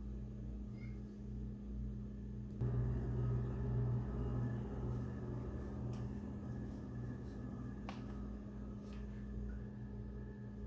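A steady low machine hum. About two and a half seconds in, a louder, wider rushing noise joins it, and there are a couple of faint clicks later.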